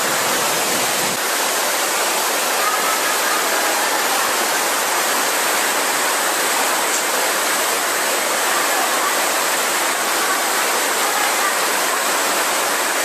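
A steady, loud rush of water, an even hiss without a break, of the kind heard in flood-time torrents or a heavy downpour.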